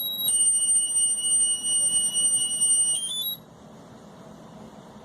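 High electronic alarm tone, held steady with one shift in pitch, ending about three seconds in with a quick run of short stepped notes.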